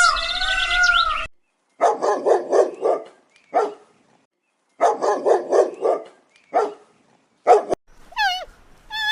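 A dog barking: two quick runs of barks with single barks between them, after a short high wavering call at the start.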